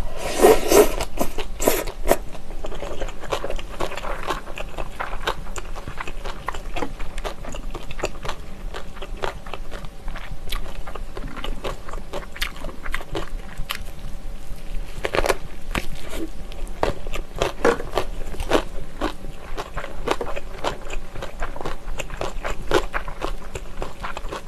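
Close-miked eating: chewy jjolmyeon noodles slurped in with a loud burst at the start, then chewing and a bite into a whole gimbap roll, with wet mouth clicks and smacks throughout.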